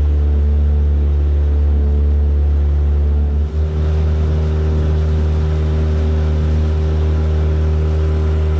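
Boat outboard motor running steadily at cruising speed as the boat travels: a loud, even low drone with a brief wobble about three and a half seconds in.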